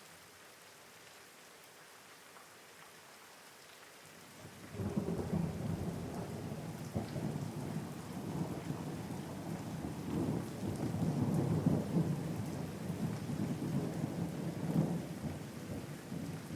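Steady rain falling, with a long rumble of thunder that breaks in suddenly about four seconds in and rolls on in swelling waves to the end.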